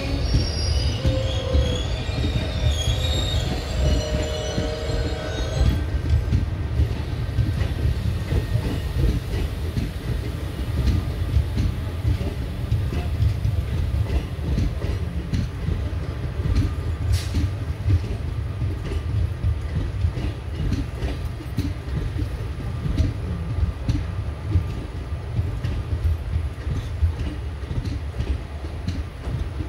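Indian Railways express train's ICF coaches rolling past along the platform, their wheels squealing against the rails for the first six seconds. After that comes a steady low rumble with the clatter of wheels over rail joints.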